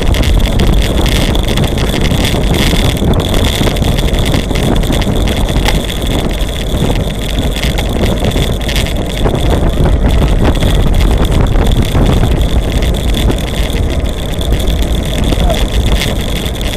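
Wind buffeting the microphone of a camera moving at racing speed behind a cyclist, a heavy, steady rumble with road and tyre noise, and a thin steady high whine throughout.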